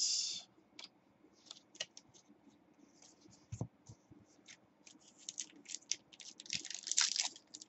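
Trading cards being handled and sorted on a cloth-covered table: short scratchy rustles of card edges sliding against each other, getting busier in the last few seconds, with one soft thump about three and a half seconds in.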